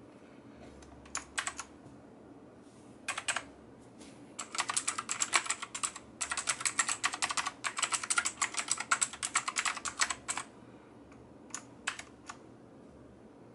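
Keys being pressed on a NOX NX-K1 mechanical keyboard: a few scattered clicks, then several seconds of fast, dense typing in the middle, then a couple of single key presses near the end.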